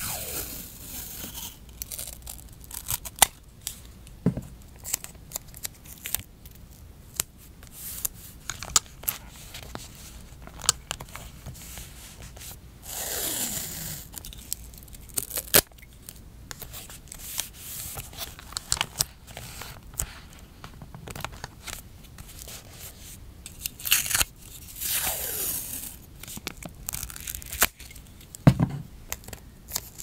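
Washi tape being pulled off its roll and torn, with two longer peels, about 13 seconds in and again near 25 seconds, each dropping in pitch as it goes. Between them are many small clicks and taps of tape and fingernails on the paper.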